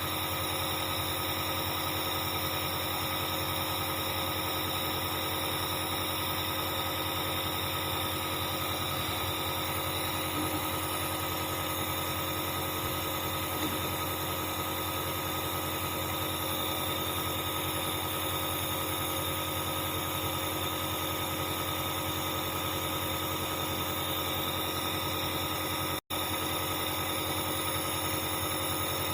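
Dr Trust compressor nebulizer's electric air compressor running steadily, a constant buzzing hum as it drives medication into mist. The sound drops out for an instant near the end.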